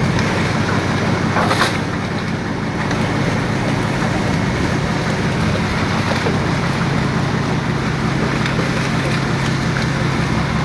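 A fishing boat's engine running steadily, with a constant low hum under wind and water noise. A brief louder rush of noise comes about a second and a half in.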